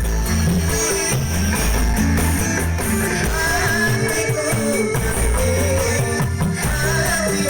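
Live dangdut koplo band playing: a steady bass line under a melody that wavers with vibrato, coming in about three seconds in.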